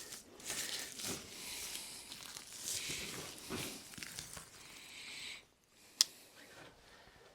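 Irregular rustling and crinkling that stops about five and a half seconds in, followed by a single sharp click.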